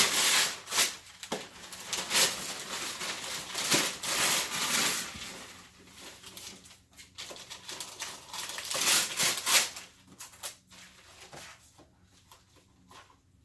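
Gift wrapping paper being torn off and crumpled by hand, in irregular rustling bursts that thin out near the end.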